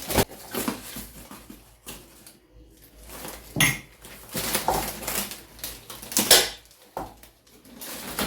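New dinner-set cups and plates clinking and knocking against each other as they are lifted out and set down, some knocks ringing briefly; the loudest clink is about six seconds in.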